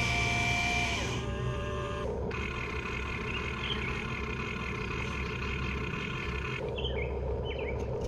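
Electric drive motors of a Huina 1593 RC excavator whining as it lifts its boom and arm, the pitch and tone shifting as functions start and stop about one and two seconds in.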